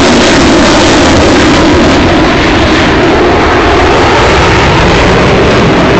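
F-15 fighter's twin jet engines, very loud and steady as the jet flies past, loud enough to push the recording to its limit.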